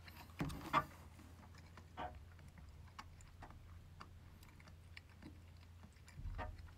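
A spoon and small bowl set down on a table with a couple of light knocks, then faint scattered ticks and a soft low bump near the end.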